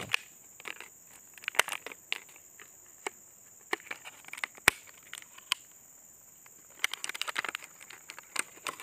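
Clear plastic lure packaging handled and opened, crinkling and clicking in several short clusters of crackles and sharp snaps. A steady high insect buzz runs underneath.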